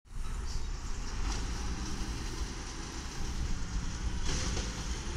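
A 1996 Volvo LNG garbage truck running down the street, heard under a low, uneven rumble of wind on the microphone, with brief hissy swells about a second in and again near the end.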